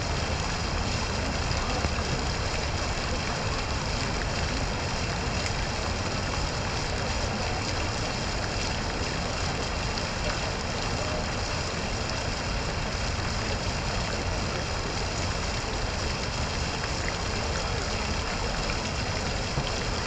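Fountain water splashing steadily into a stone basin, an unbroken rushing and spattering with no pauses.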